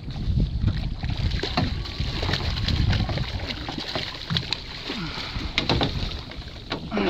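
Wind on the microphone and water sloshing against the hull of a small fishing boat, a steady low rumble with scattered light knocks and ticks.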